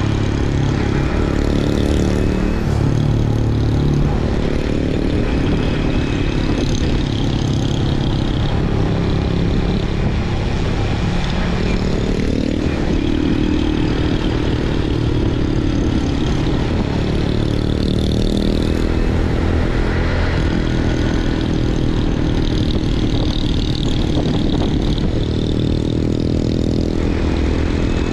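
Motorbike engine running at road speed close to the microphone, its pitch rising and falling as the throttle changes, over a steady low rumble.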